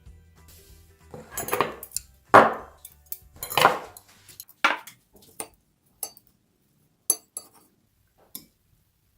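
Utensils clattering and scraping against dishes: a few longer, louder scrapes and clatters in the first half, then a handful of separate sharp clinks.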